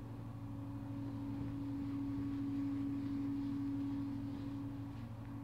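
A steady hum, with the faint rubbing of a cloth wiping a whiteboard from about two seconds in.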